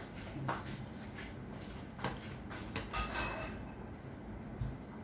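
Light kitchen clatter: a handful of brief taps and scrapes of utensils against a baking tin and dishes, spread over a few seconds.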